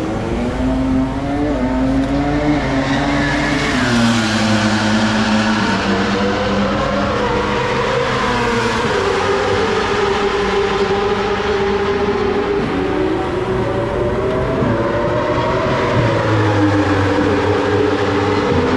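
Yamaha YZF-R1 superbike's inline-four engine running on its paddock stands, held at raised revs, its pitch drifting slowly up and down.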